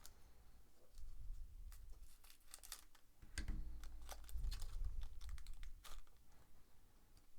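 Trading cards and a foil card pack being handled, crinkling and torn open, with many small sharp clicks and rustles and a few soft low bumps against the table.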